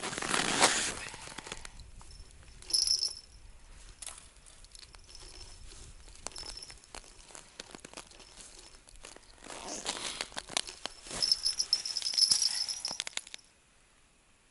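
Crunching and rustling of packed snow and stiff winter clothing as gloved hands work a tip-up's fishing line at an ice hole. It comes in irregular spells with a quieter stretch in the middle and a faint high squeak now and then, and stops shortly before the end.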